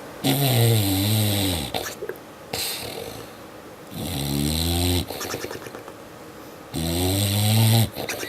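An animal snoring: three loud, rattling snores about three seconds apart, each lasting about a second, with softer breaths between them.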